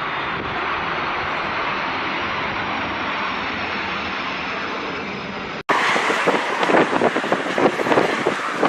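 Jet airliner engines running with a steady roar and a faint high whine that slowly falls in pitch; about six seconds in it cuts off abruptly to strong gusting wind buffeting the microphone.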